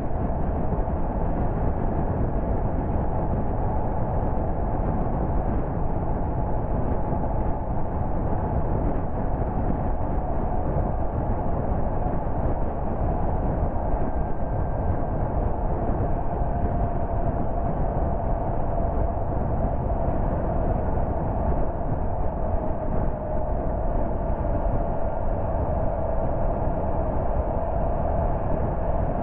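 A car driving along at steady speed: continuous tyre and engine noise with a faint steady hum.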